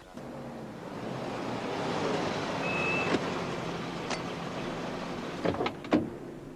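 A car driving along a street, its engine and tyre noise swelling to a peak a couple of seconds in and then easing off. There is a brief high squeak about three seconds in and two sharp knocks near the end.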